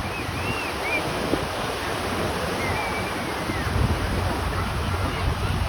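Water washing and wind buffeting the microphone, with a steady low hum underneath and a few faint high chirps.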